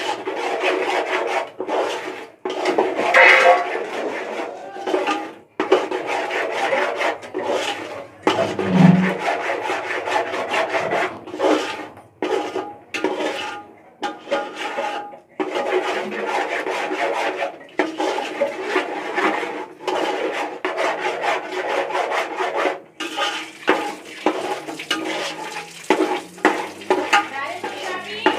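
A utensil scraping and stirring thick masala paste around a metal pot, in repeated rasping strokes with short pauses, as the spice paste is fried.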